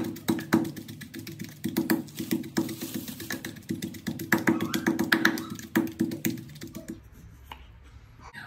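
Wooden pestle pounding in a wooden mortar, crushing a wet chili paste with quick, uneven knocks several times a second. The pounding stops about seven seconds in.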